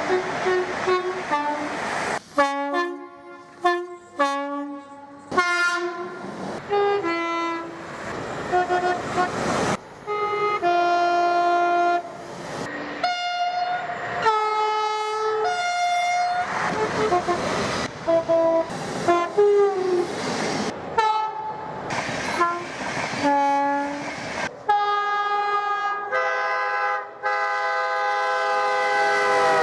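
A string of different British train horns, spliced one after another: repeated two-tone blasts with high and low notes alternating, each horn differently pitched. Near the end comes one long, steady multi-note horn chord.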